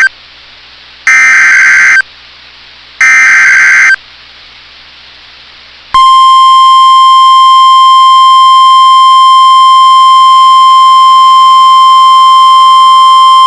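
Emergency Alert System broadcast on NOAA Weather Radio: the warbling digital SAME header bursts, about a second each and sent three times, then after a short gap the long, steady single-pitch 1050 Hz warning alert tone, starting about six seconds in. Together they signal that a new warning, here a severe thunderstorm warning, is being issued.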